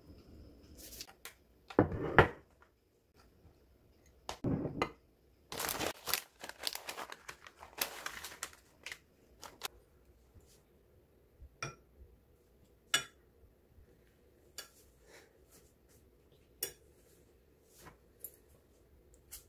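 Tableware clatter: a spoon and chopsticks knocking and scraping against ceramic bowls and plates in scattered light clicks, busier in the first half.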